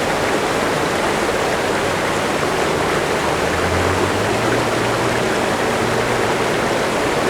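Running water rushing steadily, as from a stream or waterfall.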